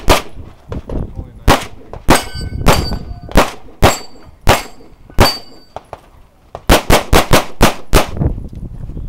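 Handgun shots fired one at a time about half a second to a second apart, several of them followed by a brief metallic ring of steel plates being hit. Near the end comes a fast string of about six shots.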